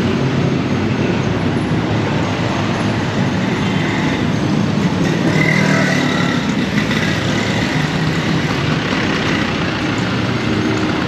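Busy city street traffic: a steady, loud din of vehicle engines and tyres running past, with a brief higher-pitched sound about halfway through.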